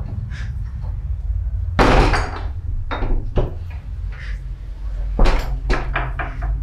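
Wooden front door and its lock: a series of sharp knocks and clacks, the loudest about two seconds in and about five seconds in, with a quick run of smaller clacks near the end. A low steady hum runs underneath.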